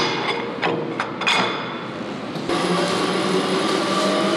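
Factory machinery for processing silicone rubber. A few sharp knocks and clatters come first, then about two and a half seconds in a steady machine hum with a held whine cuts in.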